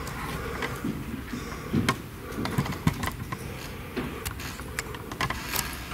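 Quiet room tone with faint, indistinct voices in the background and a few scattered sharp clicks and taps.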